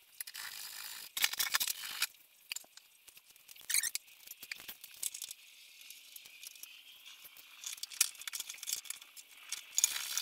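Hand tools working the rear bumper bolts of a Volkswagen split-window bus: scattered sharp metallic clicks and clinks, mostly high-pitched, growing denser over the last few seconds.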